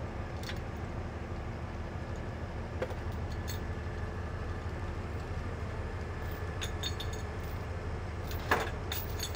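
Tow truck's engine running with a steady low hum while it winches a box truck up a boat ramp, with scattered light metallic clinks and one louder knock near the end.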